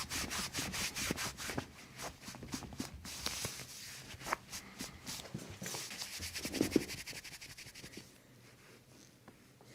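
A fast, even tapping, about eight taps a second, with one louder thud about two-thirds of the way through. The tapping stops about eight seconds in.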